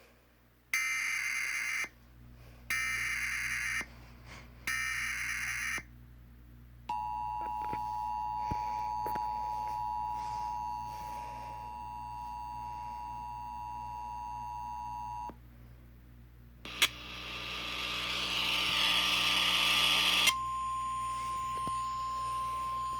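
Emergency Alert System tones: three short, buzzy, screeching data bursts of the SAME header, about a second apart, then the two-tone attention signal held for about eight seconds. After a few seconds of hiss, a single steady tone starts near the end and carries on.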